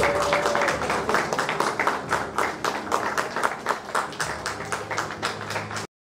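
Small crowd applauding: many hands clapping fast and unevenly, easing slightly, then cut off abruptly just before the end.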